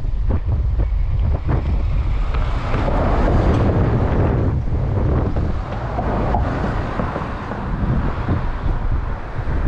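Strong wind buffeting the microphone: a loud, low rumble that swells and eases with the gusts, with a few sharp knocks near the start.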